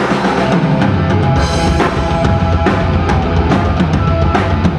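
Live rock band playing an instrumental ending: distorted guitars, bass and a drum kit pounding steadily.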